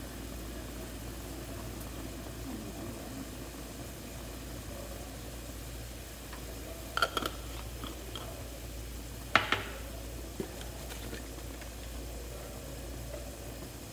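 Pot of broth with minced pork at a rolling boil, bubbling steadily. A couple of sharp clicks come about halfway through and again a couple of seconds later.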